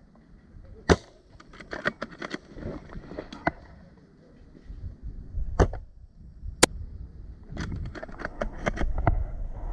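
Close rustling and handling noise with a string of sharp clicks and knocks; three louder knocks stand out, about a second in and twice around the middle.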